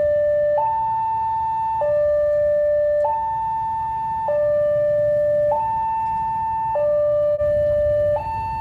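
Railway level-crossing warning alarm from a horn loudspeaker on the crossing signal post: a high tone and a low tone alternate, each held a little over a second. It signals that the barrier is closing for an approaching train. Under it is a low rumble of idling road traffic.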